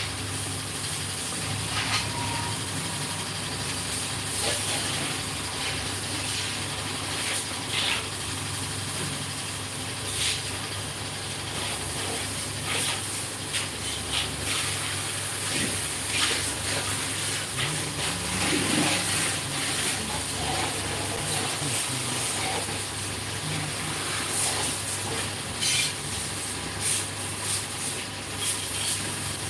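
Workshop background: a steady low hum and hiss with scattered short metallic clicks and taps, typical of tools and parts being handled during steering-head bearing work on a Royal Enfield Bullet Classic 350.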